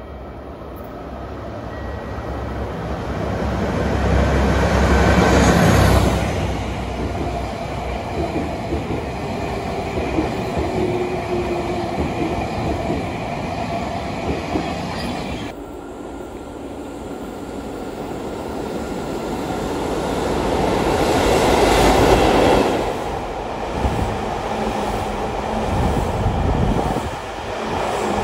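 Locomotive-hauled train of new passenger cars, in transit as freight, passing through a station. The sound swells to its loudest about five seconds in and fades, then cuts suddenly to a second such train passing, loudest about 22 seconds in.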